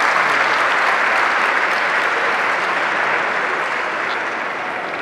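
Large concert audience applauding, a dense steady clatter of many hands that slowly dies down toward the end.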